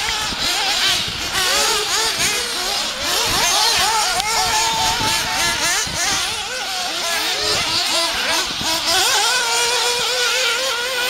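Several small nitro glow engines of 1/8-scale radio-controlled off-road buggies racing, giving high-pitched overlapping whines. Each whine keeps rising and falling in pitch as the buggies accelerate and back off through the corners.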